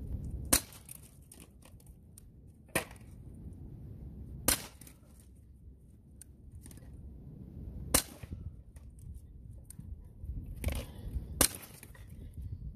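Five shots from a Sig Sauer Air P320 X-Carry CO2 blowback BB pistol, each a sharp, short report, fired a few seconds apart at an uneven pace.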